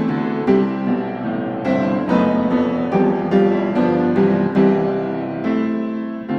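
Background music: gentle piano with notes struck about once or twice a second, each one fading before the next.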